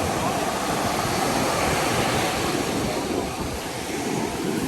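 Sea waves washing onto the shore, a steady rushing, with wind on the microphone.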